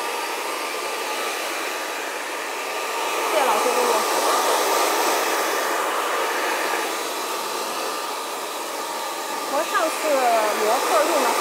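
Handheld hair dryer running steadily while blowing hair dry, an even rush of air with a faint steady whine in it.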